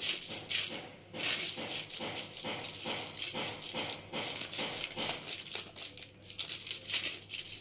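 Butter paper crinkling and rustling in quick, irregular bursts as mashed potato mixture is rolled up in it into a log.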